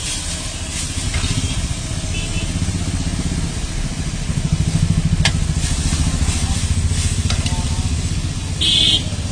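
Chicken lollipops frying in an iron kadai on a gas burner, with a low, fluttering rumble underneath and light sizzling. The metal spatula clicks against the wok twice, a few seconds apart.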